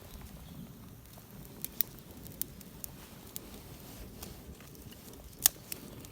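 Wood campfire crackling: irregular sharp pops and snaps, the loudest about five and a half seconds in.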